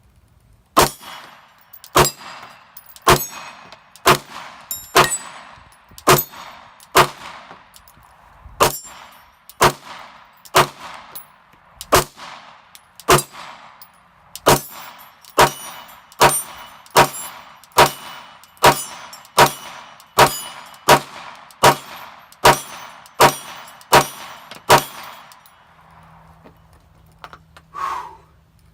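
Glock 26 Gen 4 subcompact 9mm pistol firing a string of single shots from a KCI 33-round stick magazine, about two dozen shots at roughly one a second, quickening slightly, each shot ringing out behind it. The magazine feeds round after round without a stoppage; the shots stop a few seconds before the end.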